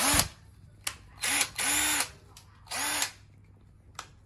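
Mollar 12 V cordless impact driver's brushed motor run unloaded in four short trigger pulls, each whining up in pitch as it spins up and dropping as it stops. A light click comes near the end.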